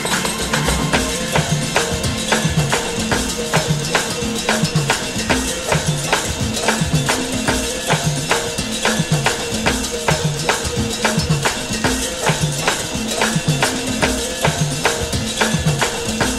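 Background music with a steady percussion beat.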